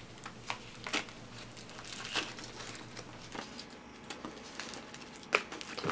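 Faint rustling of a plastic bag and foam packing being handled, with a few light clicks scattered through, as the ignition module is lifted out of the box.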